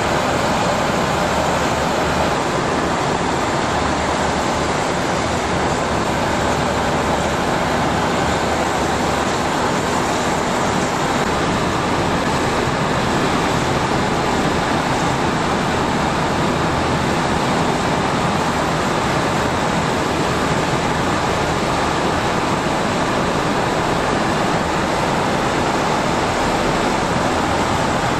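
Gas turbine engines of a US-built LCAC air-cushion landing craft running on the spot: a loud, unbroken roar with a high whine above it.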